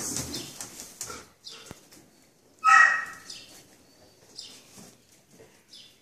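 An Australian shepherd dog sniffing and rustling about, with one short, loud yip about three seconds in.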